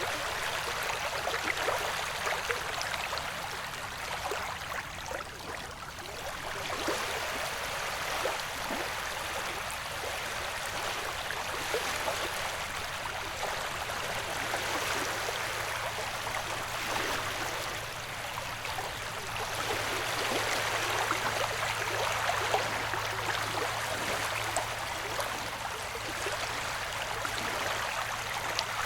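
Ocean waves: a steady watery rush that slowly swells and eases, with faint splashy crackles.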